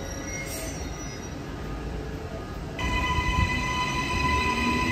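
Narrow-gauge train rumbling along the rails. About three seconds in, a steady high-pitched squeal from the wheels sets in and the sound gets louder.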